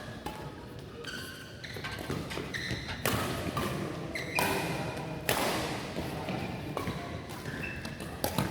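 Badminton rally: racquets strike the shuttlecock with sharp smacks every second or so, and court shoes squeak in short high chirps between the hits.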